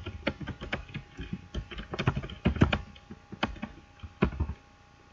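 Typing on a computer keyboard: a run of irregular key clicks that stops shortly before the end.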